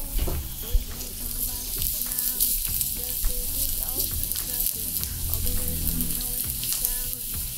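Chopped garlic sizzling in hot olive oil in a nonstick frying pan, stirred with a spatula.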